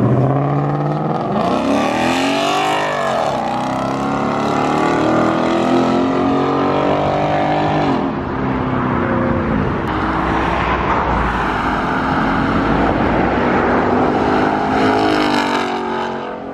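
Ford Mustang GT's 5.0 V8 with an X-pipe in place of the baffled stock resonator, accelerating hard past in several drive-bys. The exhaust note rises and drops back in pitch again and again.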